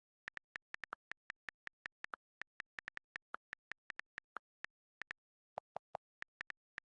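Rapid typing: sharp key-press clicks at uneven spacing, about four or five a second. A few lower-pitched clicks come about five and a half seconds in.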